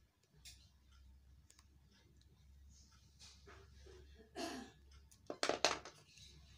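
Hand-handling noise of a small plastic on/off switch and its wires being worked into a hole in a plastic handle pipe: faint scattered clicks, then a short scraping rustle about four seconds in and a louder cluster of scraping rustles about a second later.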